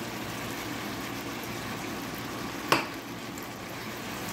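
Yellow noodles frying in a hot pan, with a steady sizzle as soya sauce is poured over them and they are tossed with a spatula. A single sharp knock about two and a half seconds in.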